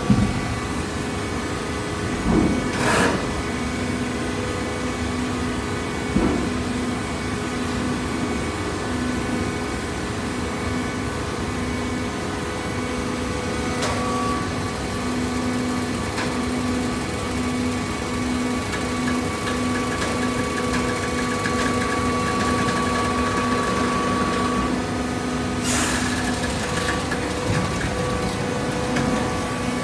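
Horizontal hydraulic baler's electric motor and pump running, a steady hum with a pulsing low tone. A higher steady tone joins about halfway through and stops a few seconds before the end, and two short noisy bursts come about three seconds in and near the end.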